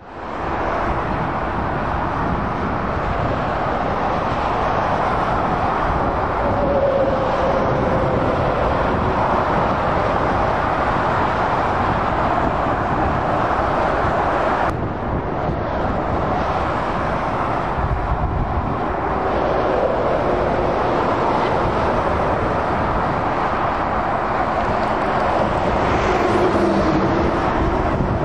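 Steady motorway traffic noise: the tyres and engines of lorries and cars passing in several lanes blend into a continuous wash of sound. The sound changes abruptly about halfway through, at an edit.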